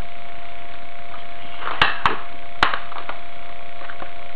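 Three sharp knocks of metal string-trimmer shafts being handled, the detachable edger attachment fitted and locked onto the trimmer shaft, all within about a second near the middle. A faint steady hum lies underneath.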